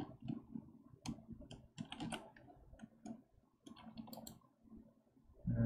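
Quiet, irregular clicks of a computer mouse and keyboard. Near the end comes a short, louder hum from a person's voice, broken once.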